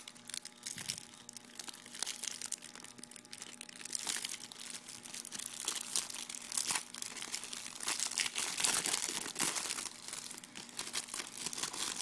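Plastic packaging of a silicone phone case crinkling and rustling as it is unwrapped, an irregular run of crackles that grows busier near the end.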